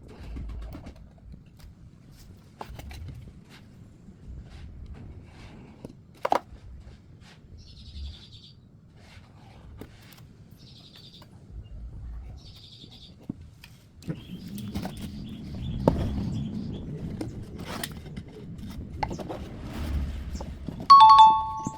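Scattered knocks, taps and clicks of wood being worked by hand, with brief high chirps in the middle and busier work from about two-thirds of the way through. Near the end comes a loud, bright two-note chime.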